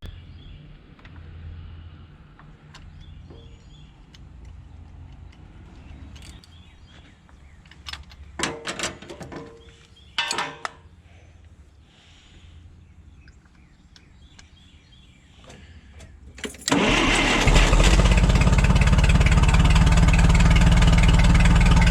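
A few metal clanks, then a forklift engine starts about three-quarters of the way through and runs steadily. A replacement spark plug is in the cylinder that had been missing, and it runs much better: the misfire is cured.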